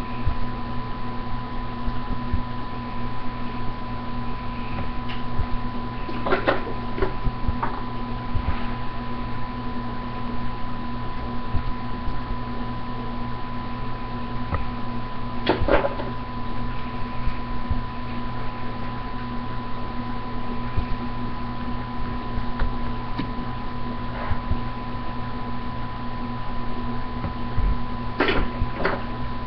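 Steady electrical hum with a high whine. A few light knocks come from toy horses being handled and set down: about six seconds in, about halfway through, and twice near the end.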